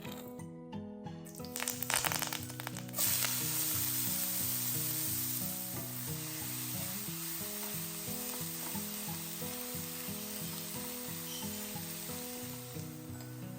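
Hot oil in a pan sizzling loudly as food goes in about three seconds in, after a brief crackle, then frying steadily and easing a little. Background music plays throughout.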